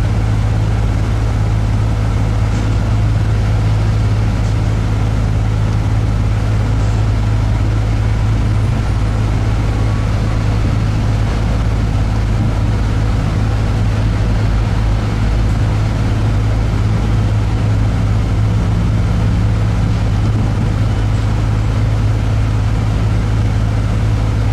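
Steady engine and road drone of an airport apron bus, heard from inside the cabin while it drives, with a strong low hum that holds unchanged throughout.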